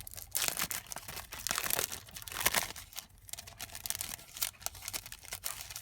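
A pack of 6x6 handmade paper sheets being handled, with irregular crinkling and rustling of paper and its wrapping; it goes quieter for a moment about halfway through.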